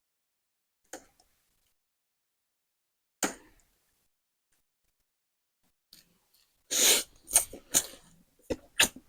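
Mouth sounds of people eating spicy noodles: a few scattered clicks, then a burst of short, loud, noisy sounds near the end, slurping or coughing at the spice.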